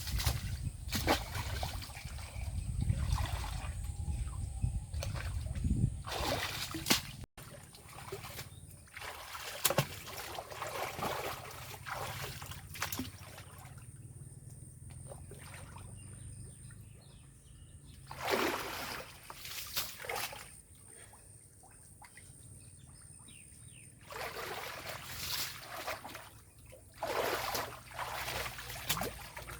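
Water splashing and sloshing in irregular bursts, with trickling between them and a faint steady high-pitched tone behind.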